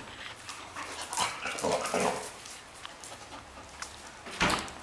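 Dogs moving about at close range: panting, claws clicking on a tile floor, and a short whine or whimper around the second second. A loud, sudden short burst of sound comes near the end.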